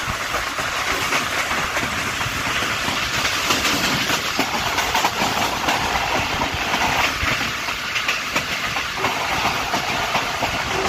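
Tezgam Express passenger train running along the track: a steady rush of wheel-and-rail noise with a rapid clatter of clicks as the wheels cross the rails.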